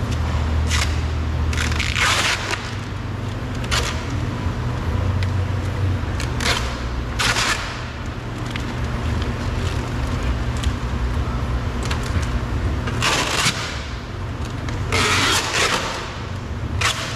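Plastic trim piece on a pickup's rear door being pried and worked loose, giving short scraping and cracking noises at irregular intervals over a steady low rumble.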